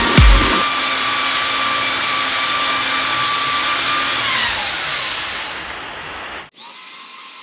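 An electric woodworking power tool running steadily with a high whine, then switched off and spinning down, its pitch falling, about four to five seconds in. After a sudden cut, a fainter steady motor whine.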